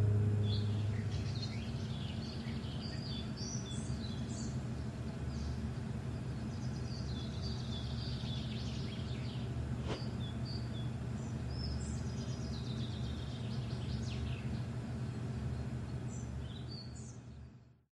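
Birds chirping in short, scattered calls over a steady low background rumble, with the last notes of a song fading out at the start. The ambience fades and cuts off just before the end.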